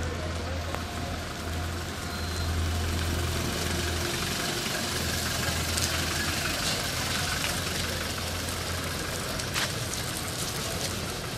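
A motor vehicle's engine idling steadily, with a low hum that is strongest for the first few seconds and a few faint clicks later on.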